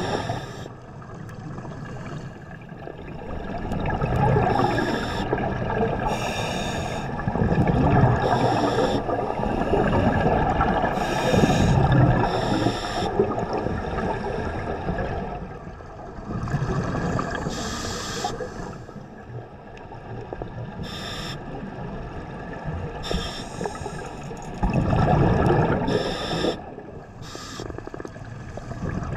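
Scuba diver breathing through a regulator underwater: short hissing inhalations and bubbling, rumbling exhalations, repeating every few seconds.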